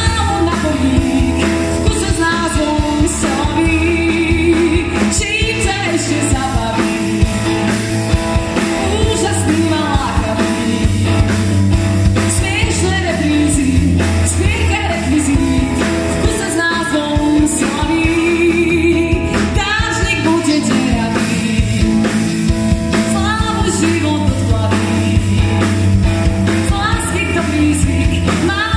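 Live pop-rock band performing: a woman singing lead over electric guitar, keyboard and drum kit, amplified through the stage PA.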